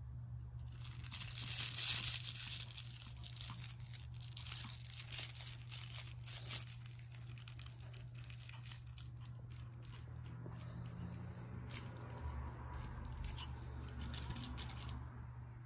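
Rustling of a plush dog toy as a Pomeranian puppy bites, tugs and shakes it: a dense run of rustles and small clicks, loudest about two seconds in, that stops near the end.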